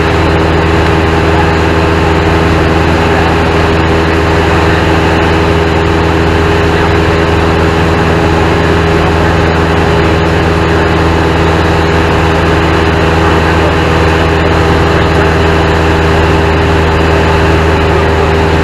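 Single-engine light airplane's piston engine and propeller running steadily in cruise flight. It is a loud, even drone with a rushing hiss of air and no change in pitch.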